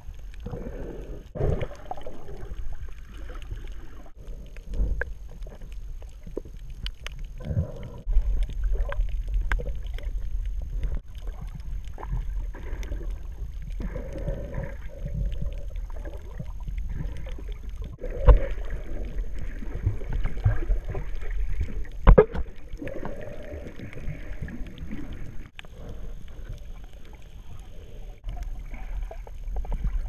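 Muffled underwater sound picked up by a submerged camera: a steady low rumble of moving water, with scattered knocks, the loudest about 18 and 22 seconds in.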